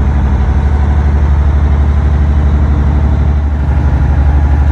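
Boat engine running steadily: a deep, even drone with a regular throb.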